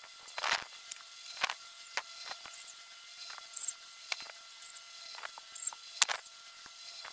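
Scattered clicks, knocks and brief scrapes of hand work on cut rubber tyre pieces and small parts, with a sharp knock about six seconds in. A few short high squeaks and a faint steady hum sit under it.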